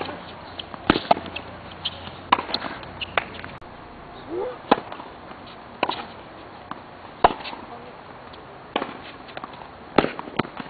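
Tennis balls struck hard by rackets, a sharp crack about once every second or so, at the steady pace of a rally.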